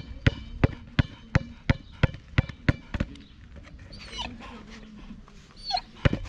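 A ball bouncing steadily, about three bounces a second, stops about three seconds in and bounces twice more near the end. In between, a Rottweiler gives a couple of short, high whines, the sign of a dog worked up over the ball.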